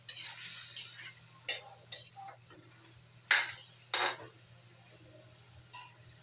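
A metal spoon stirring chicken pieces in a metal wok, scraping and clinking against the pan. The two loudest knocks come about three and four seconds in.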